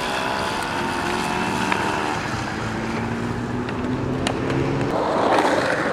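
A motor engine running steadily, its pitch drifting slightly lower, followed by a louder rush of noise near the end.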